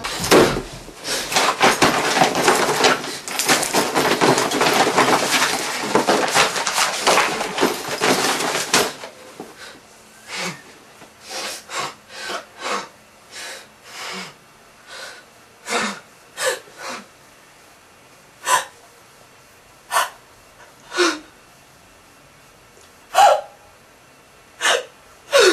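About nine seconds of dense rustling noise, then a string of short, separate sniffs and gasping breaths a second or two apart, a few with a brief falling cry in them.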